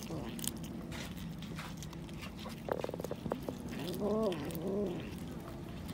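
A kitten chewing raw fish, with scattered wet clicking bites and a quick run of crunches about three seconds in. About four seconds in come two low cat calls, each rising then falling in pitch, the second shorter.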